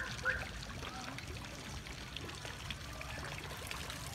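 Water from a garden pond fountain trickling and pouring steadily, with two short high chirps right at the start.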